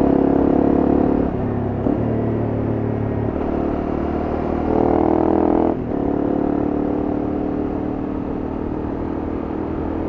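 Honda CRF250M's single-cylinder four-stroke engine running under way, its note rising and falling with the throttle, with a rise about five seconds in and a sharp drop about a second later.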